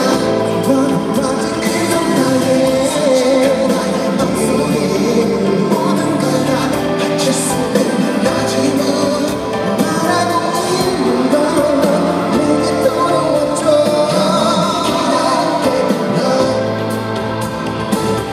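Live pop song played over a concert hall's sound system, with a male singer's lead vocal over the band backing.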